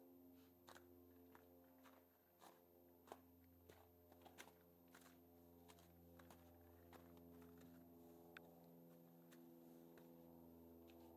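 Faint footsteps crunching on a sandy rock trail, a steady walking pace of nearly two steps a second that stops about eight seconds in. A quiet sustained music chord holds underneath.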